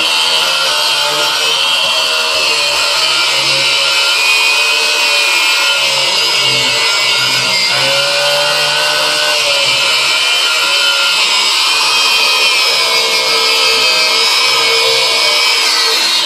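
Battery-powered Ryobi angle grinder fitted with a wire brush, running steadily while it cleans a steel lawnmower blade. Its high whine wavers slightly as pressure on the blade changes.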